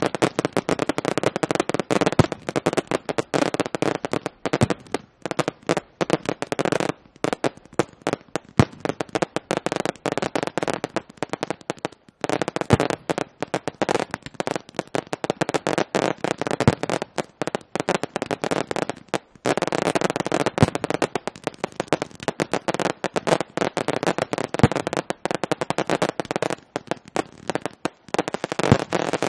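Fireworks display firing: aerial shells and ground-launched comets go off in a dense, rapid run of overlapping bangs, with a few brief lulls.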